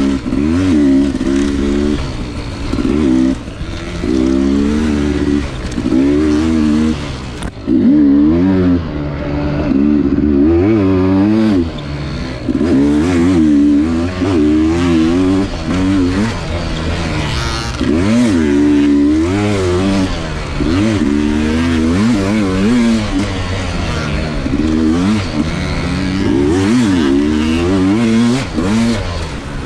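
Sherco SE300 two-stroke dirt bike engine ridden hard, its pitch rising and falling every second or two as the throttle is opened and shut through the gears. It eases off briefly about seven seconds in.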